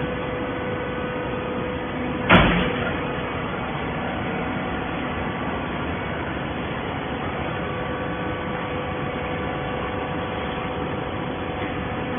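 Hydraulic waste paper baler running, its pump motor giving a steady hum, with a single loud bang about two seconds in.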